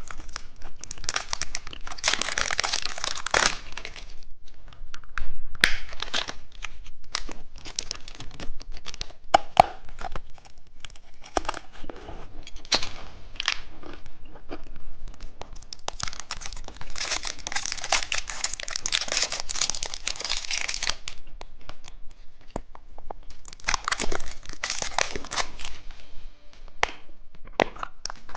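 Plastic candy packaging being crinkled and torn open, in three longer bursts of loud rustling with scattered small clicks and crackles between them.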